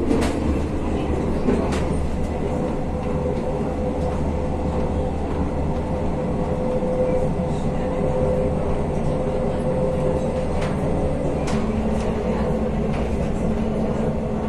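Moving train heard from inside the carriage: a steady running rumble from the wheels on the rails, with a humming tone that gives way to a lower hum near the end and a few sharp clicks along the way.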